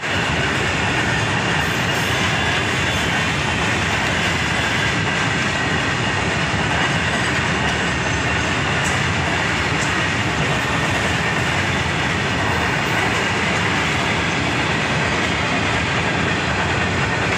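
Freight train of open-top wagons rolling past close by: a steady, loud rumble of wagon wheels running on the rails, unbroken throughout.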